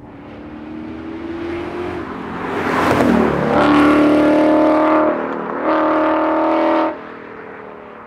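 2017 Ford Mustang coupe at rally speed, its engine note rising as it approaches and dropping in pitch as it passes close by about three seconds in. It then pulls hard away, with a short break in the pull about five seconds in, and the engine sound cuts off suddenly near seven seconds.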